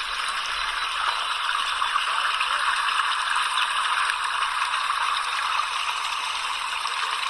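Running water splashing steadily, a constant dense rush.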